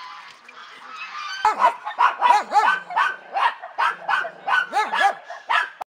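Small dog barking: fainter sounds at first, then from about a second and a half in a quick, regular run of sharp barks, about three a second.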